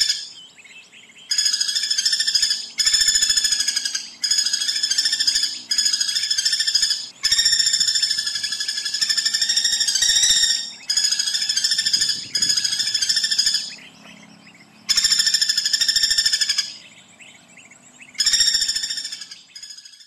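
Common flameback woodpecker giving its rapid, metallic rattling trill over and over, in bursts of about one to three seconds separated by short pauses, about nine times.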